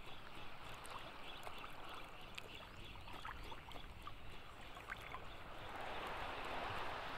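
Small sea waves lapping and splashing close by, with scattered light ticks and drips, and a fuller wash of water swelling up about six seconds in.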